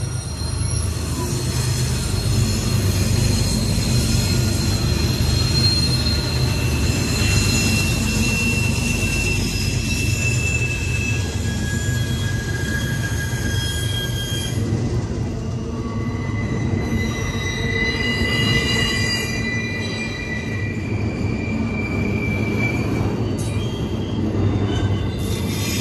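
Freight train of double-stack container cars rolling past at close range: a steady heavy rumble of wheels on rail, with high, drawn-out wheel squeals that come and go.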